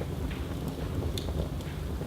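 Wood fire burning in a fireplace: a steady low rumble of flames with scattered sharp crackles and pops from the burning wood.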